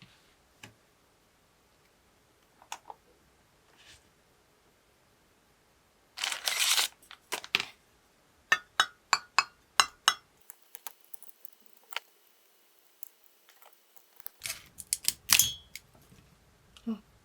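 Small handling sounds of crafting on a tabletop: scattered sharp clicks and taps, a brief rustling scrape about six seconds in, a quick run of clicks around the middle, and more clicking and scraping near the end.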